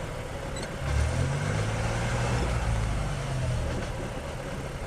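Geo Metro engine running in fifth gear with the front wheels spinning freely off the ground. It revs up about a second in, holds, then eases back down. Under it is an uneven knocking from the front drivetrain, which the owner suspects is a bad CV axle or brakes.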